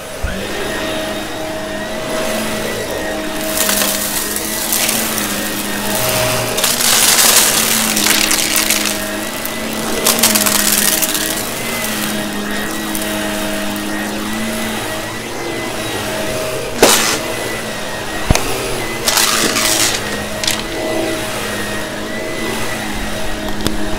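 Vacuum cleaner running with a steady motor hum while sucking up crunchy debris, which crackles and rattles through it in repeated surges, with a couple of sharp clicks partway through.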